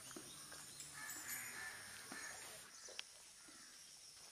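Crows cawing faintly in the distance over a quiet outdoor background, with a few soft knocks and one sharp click about three seconds in.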